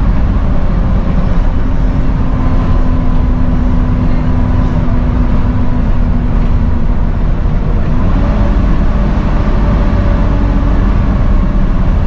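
Volvo B7TL double-decker bus's 7-litre six-cylinder diesel running under way, heard from the upper deck: a loud, steady engine drone with the whining 'hoover' note over it, shifting in pitch about eight seconds in.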